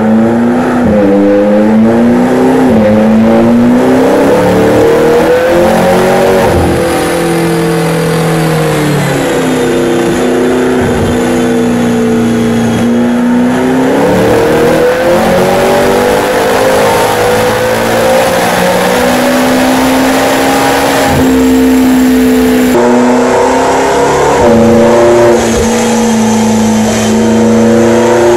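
McLaren twin-turbo V8 running under load on a chassis dynamometer, its pitch climbing and levelling off several times as it is held and revved through the low gears, with a thin high whine above the engine note.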